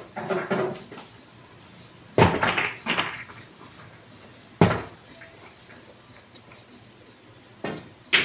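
Billiard shots: sharp clacks of a cue striking the ball and balls knocking together. One comes about two seconds in, another near the middle, and two more near the end, each followed by a short rattle.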